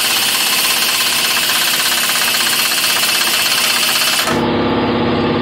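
Impact wrench hammering on a ball joint press screw, forcing a seized ball joint out of a heavy-duty control arm. The fast hammering rattle stops about four seconds in, leaving a lower steady hum.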